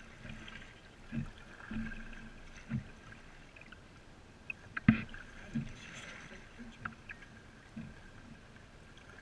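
Kayak paddles dipping and knocking as kayaks bunch together on the water, heard as a series of low, hollow knocks about a second apart; the loudest is a sharp knock about five seconds in.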